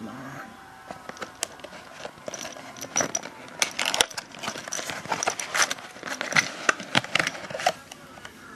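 Cardboard box of 30-30 rifle cartridges being opened by hand: card rustling and scraping with many small sharp clicks and taps, thickest through the middle seconds, as the cartridge tray is worked out.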